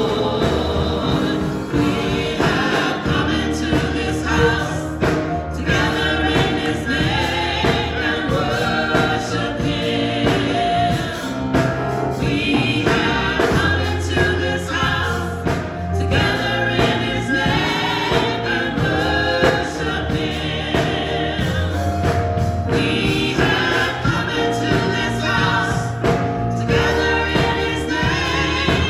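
Gospel choir singing, continuous, with held low notes underneath.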